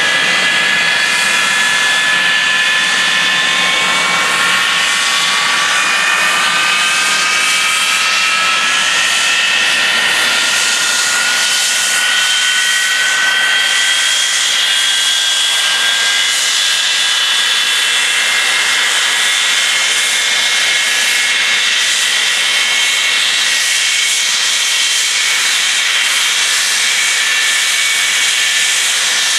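English Electric Lightning F6 jets' Rolls-Royce Avon turbojets running on the ground: a loud turbine whine with several tones that rise slowly through the first half and then hold steady over a steady jet hiss.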